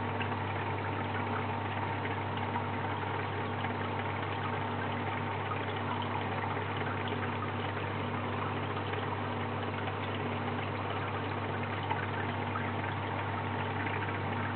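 Steady low hum of aquarium pump equipment with the even hiss of circulating water.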